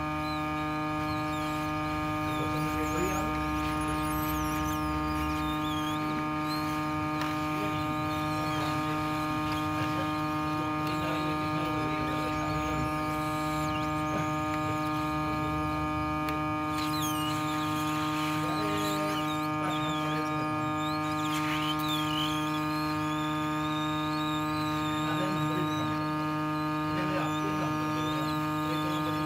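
Hot air rework station blowing steadily on a phone circuit board to heat and desolder the SIM card holder, with a steady electrical hum.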